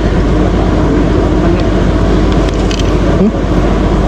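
A motor running steadily, giving a low hum.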